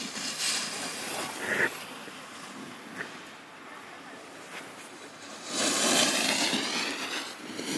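Snowboard edge carving through snow: a scraping hiss that swells loudly twice, briefly in the first two seconds and longer about two thirds of the way through.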